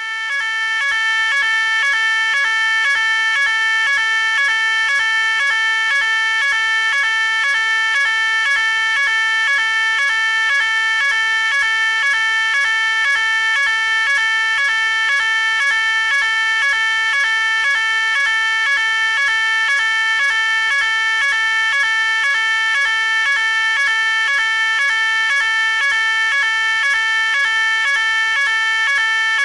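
Electronic fire alarm sounder going off: a loud, high-pitched tone pulsing rapidly and evenly without a break.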